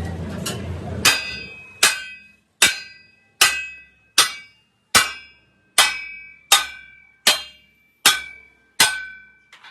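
Hammer striking a steel truck wheel rim in a steady rhythm, eleven blows about one every 0.8 seconds, each leaving a ringing metallic tone that dies away before the next.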